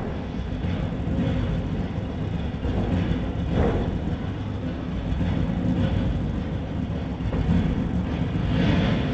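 A steady low rumbling noise, swelling briefly about three and a half seconds in and again near the end.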